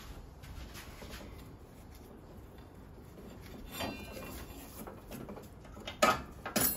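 Faint rubbing and handling as the drive belt is worked off a riding mower's cutting deck, then two sharp clacks near the end.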